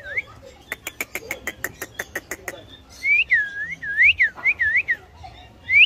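Indian ringneck parakeet calling: a quick run of sharp chirps, about eight a second, then a string of swooping whistles that dip and rise again, ending with one rising whistle.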